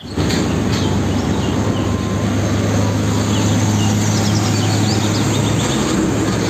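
Isuzu fuel tanker truck's diesel engine running with a steady low drone, together with road and tyre noise, as the truck drives past. Small birds chirp faintly in the background.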